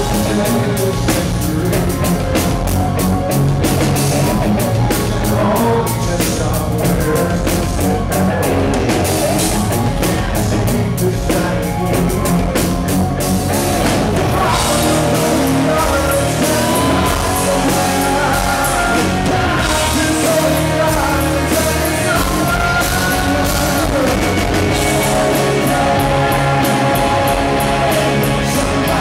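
Live rock band playing at full volume: a male lead vocal over electric guitar and a driving drum kit.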